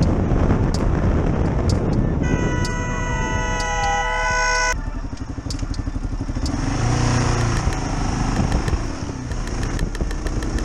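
Road and wind noise from a moving motorcycle, then a vehicle horn sounded for about two and a half seconds that cuts off sharply. After it, the motorcycle's engine runs and revs up briefly.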